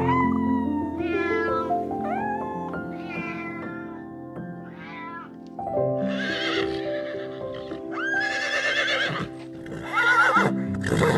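A farm animal calling several times over steady background music: a run of short pitched calls, then three longer, harsher wavering calls.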